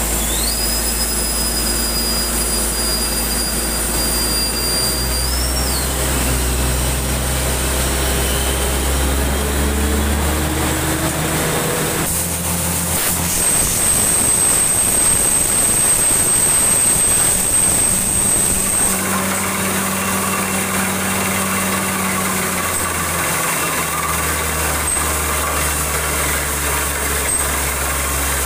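Borewell drilling rig at work, its motor and the air compressor that drives the drill running as a loud, steady drone that shifts in pitch a few times. A thin high whistle sounds over it in the first few seconds and again in the middle.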